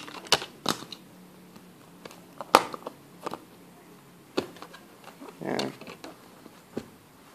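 Scattered clicks and knocks from handling a smartphone and its USB cable, with the loudest knock about two and a half seconds in and a short rustle near the middle.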